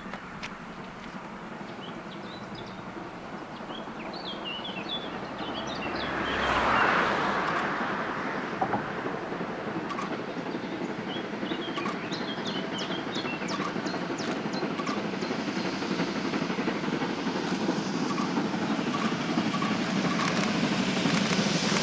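Steam locomotive hauling a train approaching along the line, its running noise growing steadily louder, with birds chirping. A brief whoosh comes about a third of the way in.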